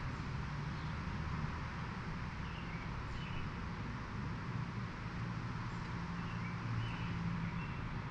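Town ambience: a steady low rumble of traffic, with a few short bird chirps now and then.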